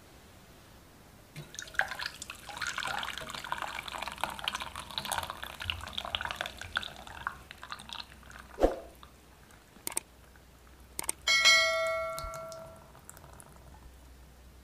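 Thick chocolate mixture poured through a fine mesh sieve, a wet spattering patter for several seconds. Then a few knocks and a sharp metallic clink that rings on for about a second.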